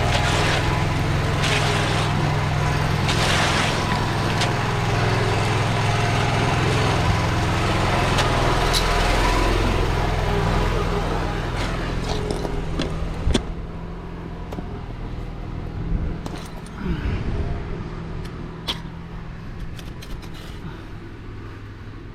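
A heavy engine running steadily, loud for the first half and then quieter. Scattered clicks and scrapes of tools on concrete are heard after about twelve seconds.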